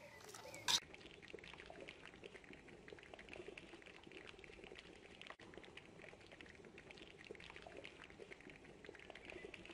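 A stew of cow's feet and chickpeas simmering in a pot: a faint, steady bubbling and popping of the thick sauce. A short clink sounds near the start.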